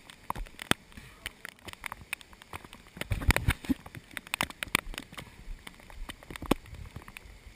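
Rain pattering close to the microphone as irregular sharp clicks and crackles, over a faint hiss of water running off the canyon walls.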